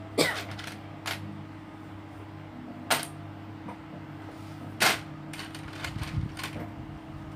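Plastic Lego pieces clicking and clattering as they are handled and snapped together: five sharp clicks spaced a second or two apart, over a steady low hum.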